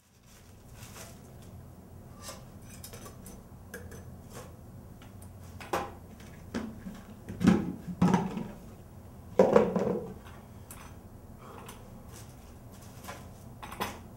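Clunks and knocks of a plastic paint bucket and its lid being handled and pressed down, with the loudest knocks bunched in the middle, over a low steady hum.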